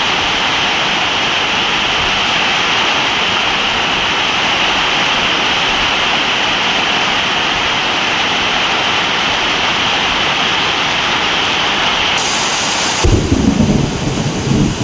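Heavy rain falling as a steady, dense hiss. Near the end the sound changes abruptly to a different rain texture, joined by a deep rolling rumble of thunder that swells and falls.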